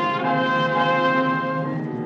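Brass-led orchestral music opening a radio drama: full held chords that change about twice a second, with a brief dip just before a new chord near the end.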